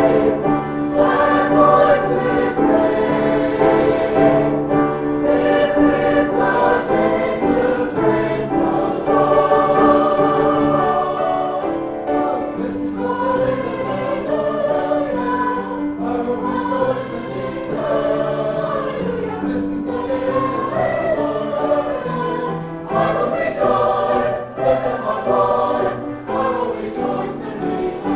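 A choir singing a sacred piece in held, sustained chords.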